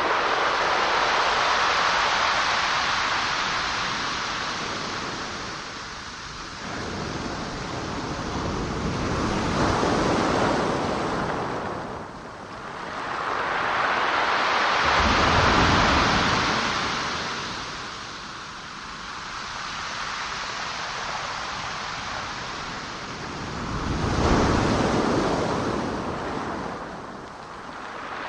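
Ocean waves washing in on a shore, a rushing surf that swells and ebbs about four times, each surge building and fading over several seconds.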